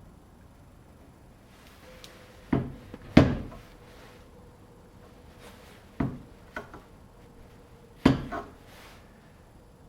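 A handful of sharp wooden knocks, some in quick pairs, about every two to three seconds, with a faint steady hum underneath from about two seconds in.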